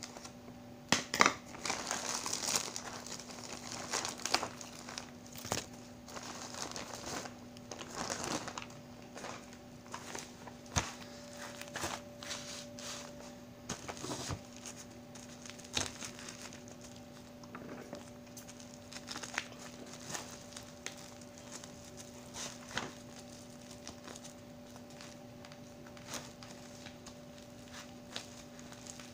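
Bubble-wrap packaging crinkling and crackling as the parcel is handled and turned over, busiest in the first several seconds, then sparser crackles and taps. A faint steady hum runs underneath.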